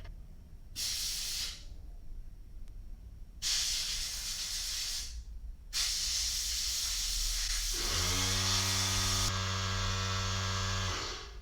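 Compressed air hissing as it is blown through a petrol lighter insert's flint tube to clear out drilling debris. There are three blasts: a short one, a longer one, then a long one that a low steady hum joins about eight seconds in.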